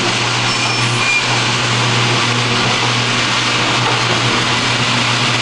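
Garage door opener's motor running steadily as the door travels, a continuous loud whir with a low hum.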